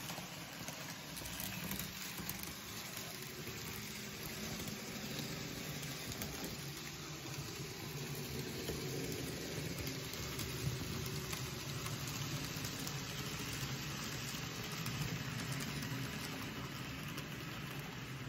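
Model trains running on exhibition layouts: a steady low rumble and hiss from the locomotives' motors and wheels on the track, with hall background noise.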